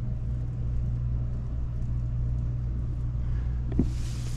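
Steady low rumble and hum of background noise. Near the end comes a short click, then a burst of hiss.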